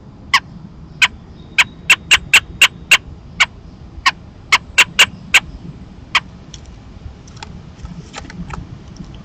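Adult American robin at the nest giving a quick, irregular run of about fifteen short, sharp clucking call notes, which stop a little after six seconds in. A steady low hum lies underneath.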